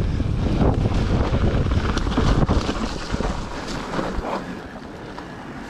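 Mountain bike rolling fast down a frosty dirt trail: tyre rumble and rattle with wind buffeting the camera microphone, dropping off about two and a half seconds in as the bike rolls onto smooth pavement.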